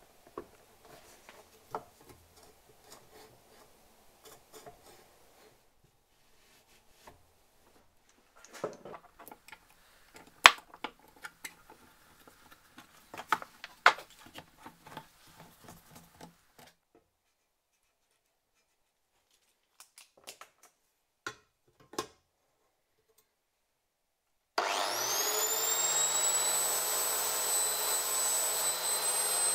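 Scattered knocks and clicks as wooden jig blocks and a circular saw blade are handled on a bench; then, near the end, a small angle grinder with a diamond disc is switched on, its whine rising as it spins up and then running steady and high-pitched, not yet cutting.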